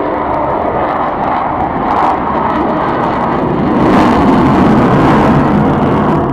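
Avro Vulcan bomber's four Rolls-Royce Olympus turbojets as it flies past the crowd: loud, steady jet noise that grows louder about four seconds in.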